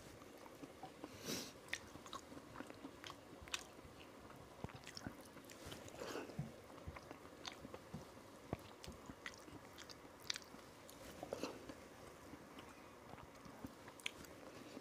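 A man eating with his hand close to a lapel microphone: faint chewing with scattered wet mouth clicks and smacks, and his fingers now and then scraping the last rice off a metal plate.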